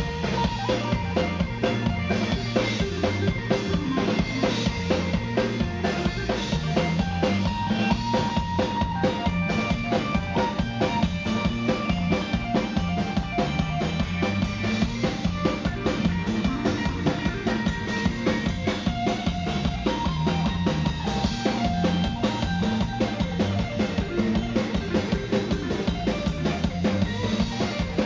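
Live rock band playing an instrumental passage: distorted electric guitar, bass guitar and drum kit, the drums keeping a steady driving beat.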